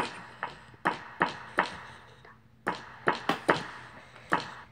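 A series of about a dozen sharp taps and clicks at uneven intervals.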